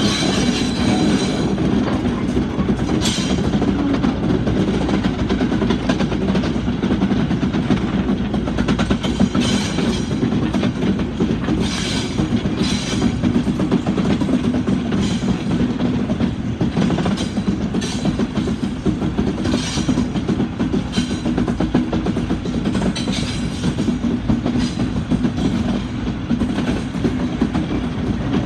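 Class 73 locomotive 73107 working a train uphill, heard from the train: a steady diesel engine drone under the wheels clicking over rail joints every few seconds.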